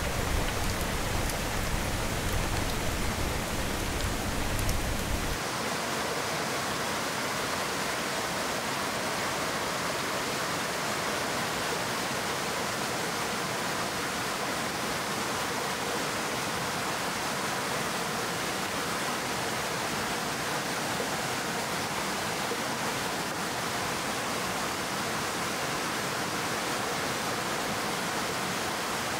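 A rocky stream rushing in a steady hiss. For about the first five seconds the crackle and deeper rumble of a wood campfire mix in; they stop abruptly, leaving only the water.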